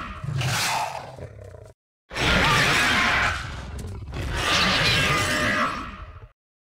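Animatronic Dilophosaurus roaring. One roar cuts off suddenly, and another starts about two seconds in and cuts off near the end.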